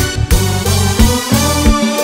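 Music: a dance track with a steady kick-drum beat of about three hits a second under a bass line and held keyboard chords, with one melodic line sliding in pitch in the second half.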